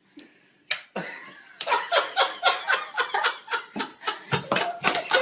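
A girl laughing hard in rapid bursts, after two sharp smacks about a second apart near the start.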